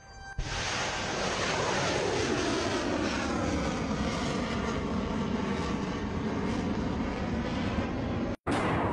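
Tomahawk cruise missile launching from a warship: the booster's steady rocket roar starts about half a second in and holds. Near the end it cuts out briefly, and another, louder launch roar begins.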